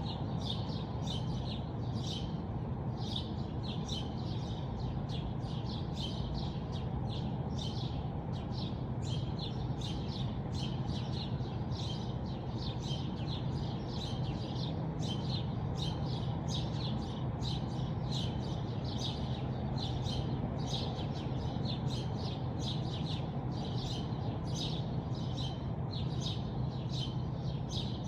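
Small birds chirping in a steady run of short, high chirps, about two a second, over a steady low hum.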